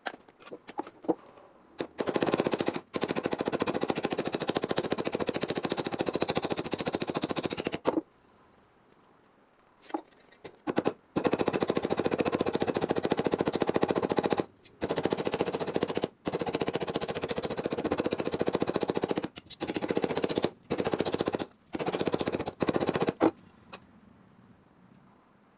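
Power tool cutting rusted car-body sheet metal, a fast rattling chatter in long bursts of several seconds, stopping and restarting several times.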